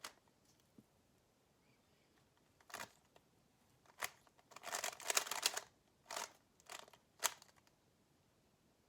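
A GAN 356 XS magnetic 3x3 speed cube being turned by hand: short plastic clacks, with single turns spaced out and a quick run of turns about five seconds in.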